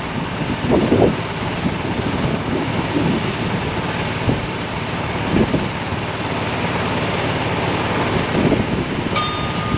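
Wind buffeting the microphone: a steady rushing with gusty low swells every second or so. Near the end comes a brief click and a short, thin high tone.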